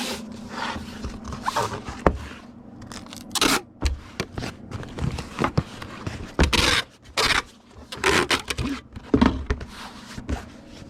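Paper and cardboard packaging being handled: irregular rustles and scrapes with a few sharp clicks and knocks.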